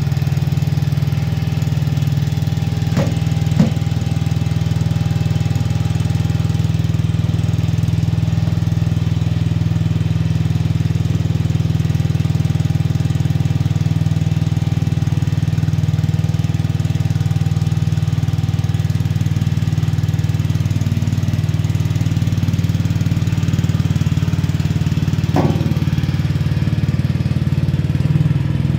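Coconut milk screw-press machine running steadily under load as it squeezes grated coconut, its drive giving an even low drone. A couple of short clicks about three seconds in and another near the end.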